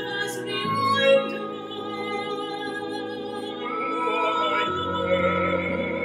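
Operatic singing with a small chamber ensemble of violin, cello, flute and clarinet, in long held notes.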